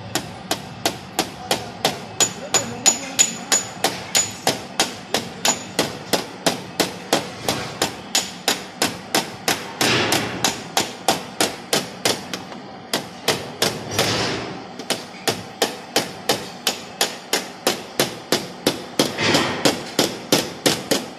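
A small hammer taps a paintless-dent-repair tap-down tool against the car's bumper panel in quick, even light strikes, about three a second, knocking down the high spots around the dent. Three times the taps pause for a short rushing noise.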